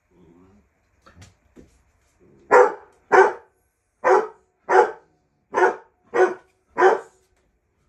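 A dog barking seven times in quick succession, mostly in pairs about half a second apart.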